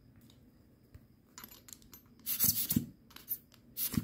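A few light clicks and knocks of the plastic typodont jaw being handled, coming in small clusters, with the strongest a little after two seconds in and again just before the end.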